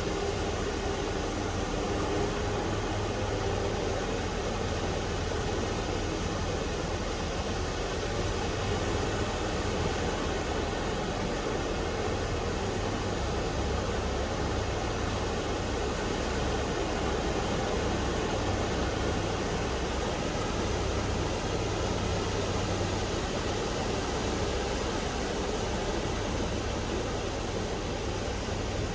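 Small sea waves washing steadily onto the beach, with wind blowing across the microphone and adding a fluttering low rumble.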